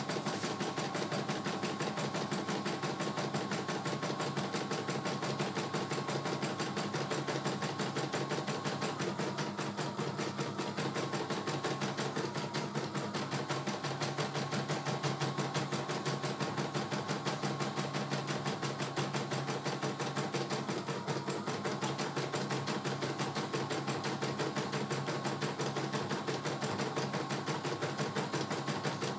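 CNY E900 computerized embroidery machine stitching a design: the needle running in a rapid, even rhythm of strokes over a steady motor hum.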